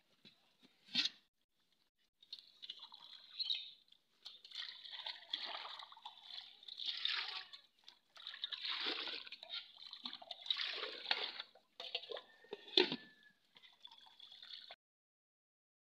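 Shallow water sloshing, dripping and trickling as hands work in it and water is poured into an aluminium pot, with a few sharp clicks, the loudest near the end.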